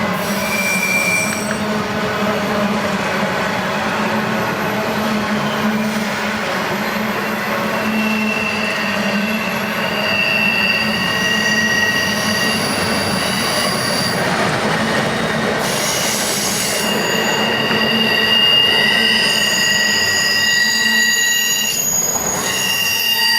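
CSX freight train's cars rolling past on the crossover, wheels squealing in high-pitched tones that come and go over a steady rumble.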